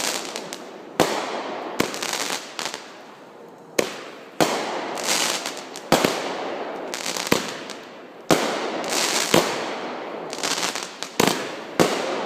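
Consumer fireworks going off: a string of sharp bangs, about one every second or two, each trailed by a fizzing crackle that dies away.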